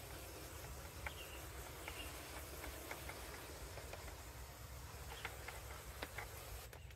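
Chapin hand-pump sprayer misting carpet cleaner onto carpet: a faint, steady spray hiss, with a few scattered light ticks.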